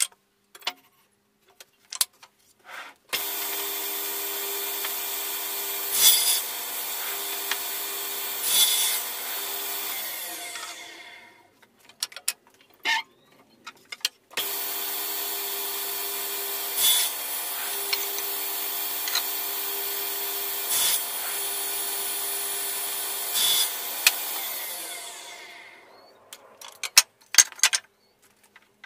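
MiniMax sliding-table circular saw switched on and running steadily, with a few short louder moments as the blade cuts through a wooden board, then winding down about ten seconds in. It is started again about fourteen seconds in, makes several more short cuts, and winds down once more, with light knocks of wooden pieces handled on the table in the quiet gaps and near the end.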